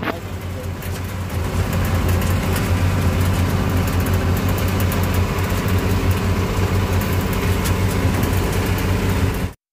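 Truck running along a rough dirt road, heard from inside its covered rear cargo bed: a steady low engine drone with road noise and many small rattles. It cuts off suddenly near the end.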